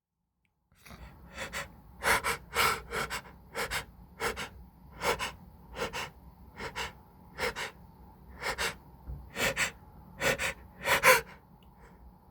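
A person's sharp gasping inhalations, often in quick pairs at roughly two a second, starting about a second in: the build-up toward an allergy sneeze.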